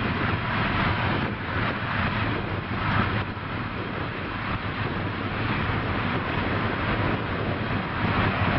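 Boeing C-17 Globemaster III's four turbofan jet engines running steadily on the ground, a constant loud rush with a low hum beneath it. Wind buffets the microphone, making the level swell and fall.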